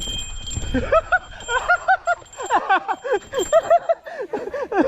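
Several people laughing and calling out excitedly, high-pitched voices in quick, overlapping bursts that start about a second in.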